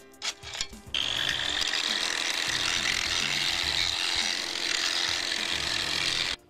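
A few short scraping strokes, then a 9-inch angle grinder grinding the edge of a concrete slab, a steady grinding with a high whine, to knock off the lip and round the edge over. It cuts off suddenly near the end.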